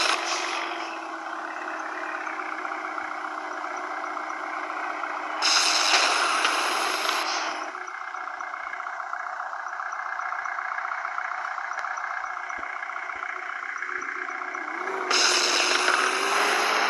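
Vehicle engine running steadily, with two louder surges of hissing noise, one about five seconds in and one near the end, where the engine's pitch rises.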